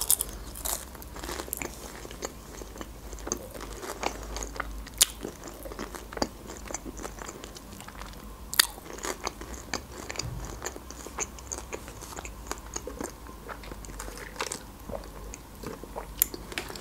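Close-miked chewing of a McDonald's blackcurrant fried pie: crunching bites of the crisp shell, with scattered sharp crackles throughout.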